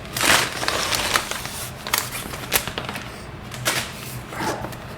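Handling noise from unpacking a mechanical keyboard: a brief rustle of packaging near the start, then scattered sharp clicks and knocks of the plastic keyboard being handled.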